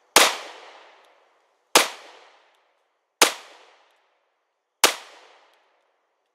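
Four gunshots about a second and a half apart, each a sharp crack trailing off in a short echo.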